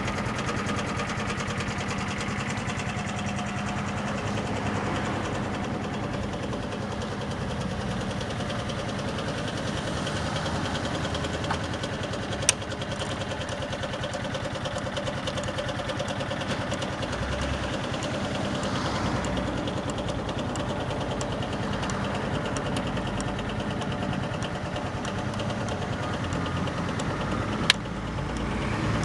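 Suzuki Gemma 125 scooter engine idling steadily, with two sharp clicks, one about midway and one near the end.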